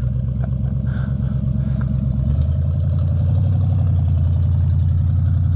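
Engine of a six-wheel-drive off-road vehicle running at a steady low speed, then throttling up about two seconds in and holding a higher, louder note as it pulls away.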